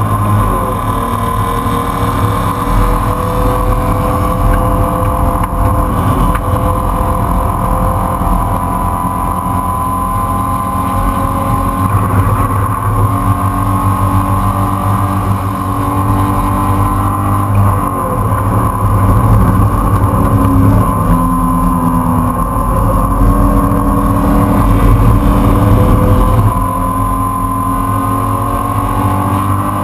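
Racing car engine at full race pace, heard from inside the open-topped cockpit, its pitch climbing and dropping as it runs up through the revs, shifts and brakes for corners.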